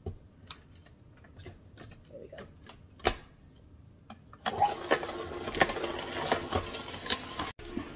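Nama J2 cold-press juicer: a few clicks and a sharp knock as the hopper lid is closed. About four and a half seconds in, the motor starts and the slow auger grinds whole carrots, a steady hum with dense crackling.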